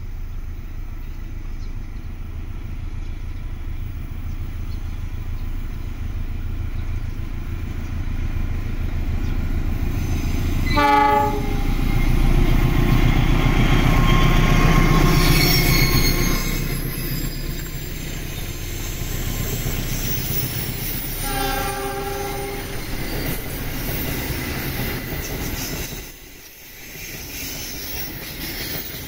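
CC206 diesel-electric locomotive hauling a passenger train around a sharp curve. Its engine rumble grows as it approaches, a short horn blast sounds about eleven seconds in, and the locomotive passes close at its loudest a few seconds later. The carriages then roll by with wheels squealing on the curve, and a second, longer horn note sounds midway through the carriages.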